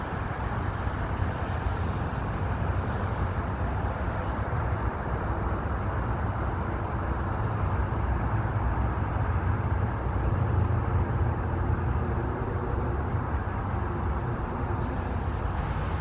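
Steady low rumble of distant road traffic, with no distinct events.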